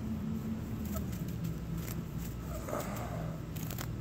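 Grass rustling as a hand grabs a landed bluegill: scattered short crackles, over a steady low drone.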